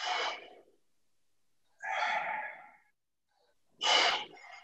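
A man breathing hard through a set of kettlebell pullovers: three forceful exhalations about two seconds apart, one with each lift of the weight.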